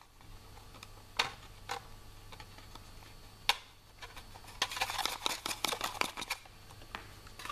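Small clicks and light knocks of a hand-held vacuum-formed plastic case and its fitted screws being handled, a few single clicks first and then a quick run of small clicks about two-thirds of the way through.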